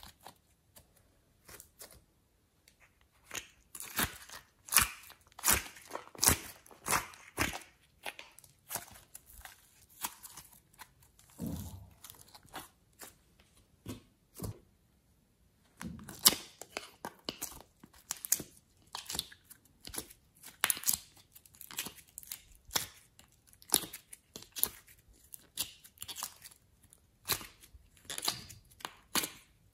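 Slime being squeezed and pressed by hand: sticky, irregular clicking and popping, with a short quiet pause about halfway through.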